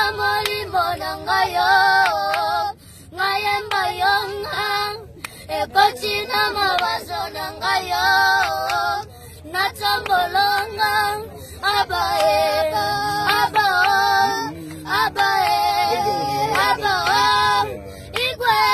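Two boys singing a song together in phrases a few seconds long, with brief pauses for breath between them.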